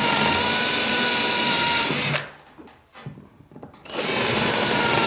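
Power drill boring pilot holes through wooden floorboards: the motor runs steadily, stops about two seconds in, and starts again about four seconds in.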